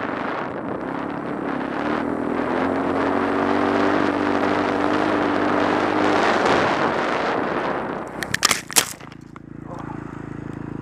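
Dirt bike engine running under throttle, its note rising and then holding over heavy wind and trail noise. About eight seconds in, a few sharp knocks and scrapes as the bike goes down in a crash, after which the engine keeps running at a low idle.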